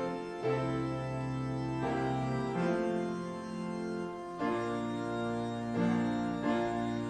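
Organ playing slow, sustained chords over a held bass line, the chords changing every second or two.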